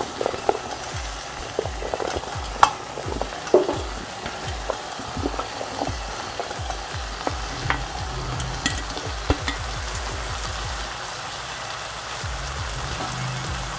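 Chopped bottle gourd being sautéed in a pan of tomato masala and dal: a steady sizzle, with scattered clinks and scrapes as it is stirred.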